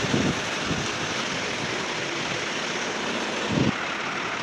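A steady rushing noise, like wind on the microphone, with two short dull low thuds, one right at the start and one about three and a half seconds in.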